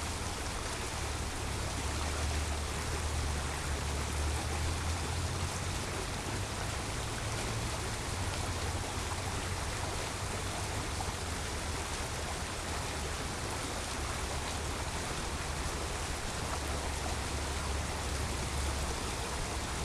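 Creek water running steadily with an even rushing sound, a low rumble underneath.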